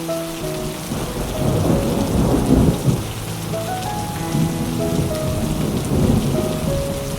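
Steady rain with a rolling rumble of thunder that swells about two to three seconds in and again near the end, over soft, slow music of sustained notes.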